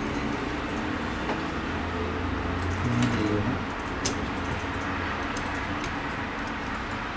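Steady background rumble and hiss, with a few light metallic clicks from small hardware being handled: an Allen key and nuts on a threaded rod.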